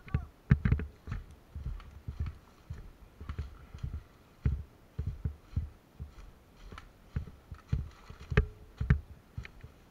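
Footsteps of a person walking: low thuds about twice a second, irregular, with small clicks between them.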